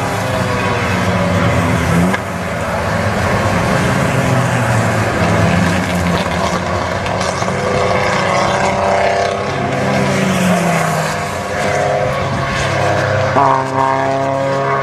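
Several vintage pre-war racing car engines running hard as the cars pass one after another, their notes rising and falling with revs and gear changes. A fresh, sharper engine note cuts in about thirteen seconds in as another car comes by.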